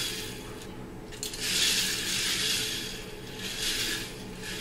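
A K'NEX coaster car on stock plastic wheels, their axles freshly oiled, rolling down and along the plastic K'NEX track. It makes a rushing rumble that swells about a second in and again briefly near the end.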